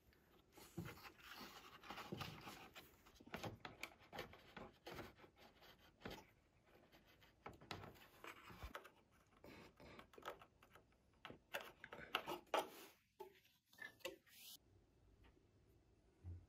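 Faint rustling with scattered soft clicks and taps, coming and going irregularly.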